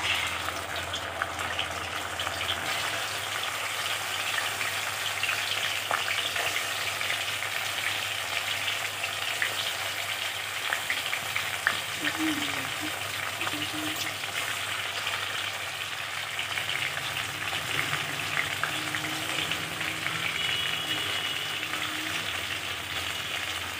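Pieces of fish shallow-frying in hot oil in a kadhai, sizzling steadily with many small crackles and pops.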